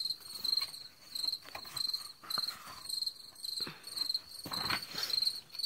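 Crickets chirping: a high, even chirp repeating about every half second, with a few faint rustles a little after three and a half and about four and a half seconds in.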